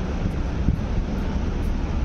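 A steady low rumble and hiss of outdoor noise, with wind on the microphone.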